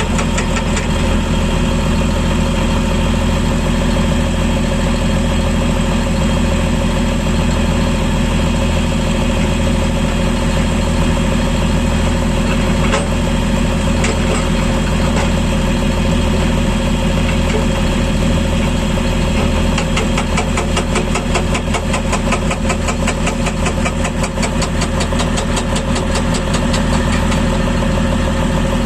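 Excavator's diesel engine running steadily. About two-thirds of the way through, a fast, even rattling pulse joins it.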